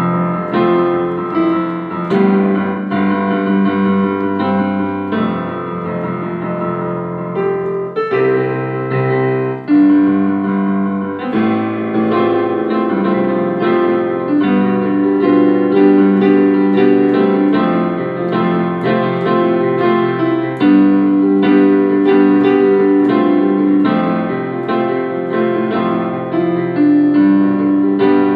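Background piano music: a keyboard melody of held notes changing in a steady flow, with no break.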